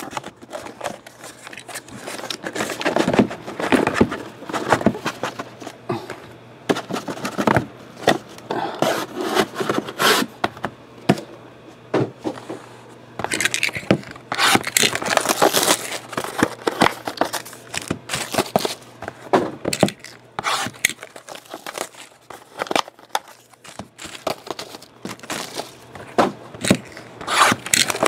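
Hands handling cardboard trading-card boxes and foil card packs: irregular scraping, crinkling and tapping of cardboard and foil on a tabletop.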